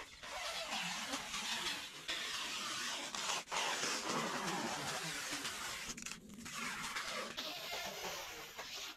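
Plastic stretch wrap being pulled off its roll and drawn around tree trunks, a continuous crackling, rustling hiss with two short breaks.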